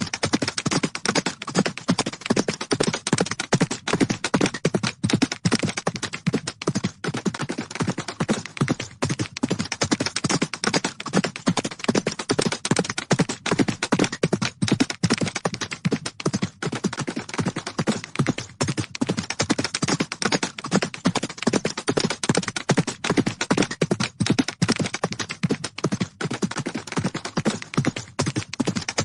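Horses galloping, their hooves striking the ground in a rapid, unbroken run of hoofbeats.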